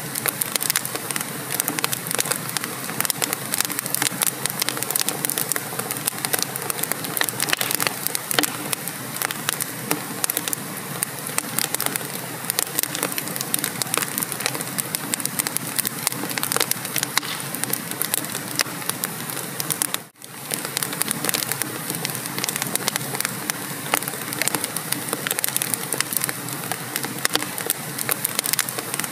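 Wood fire burning in a fireplace, with a dense, steady crackle of small pops and snaps. About twenty seconds in, the sound cuts out for a fraction of a second and then resumes.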